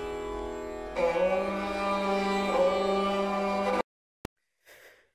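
Indian classical instrumental score on strings: sustained tones over a drone, with a louder melody line entering about a second in. The music cuts off abruptly near the four-second mark, followed by a single sharp click and a faint short noise.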